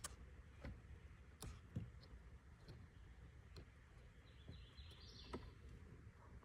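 Faint, irregular sharp clicks of plastic interior trim, roughly one or two a second, over a low steady rumble, with a brief higher-pitched sound about four and a half seconds in.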